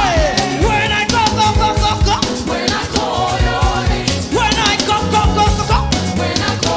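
Upbeat gospel praise music with a steady drum beat and bass under a bending sung or played melody.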